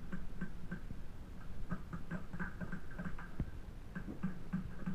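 Paintball markers firing in quick, irregular pops, several a second, heard from a distance.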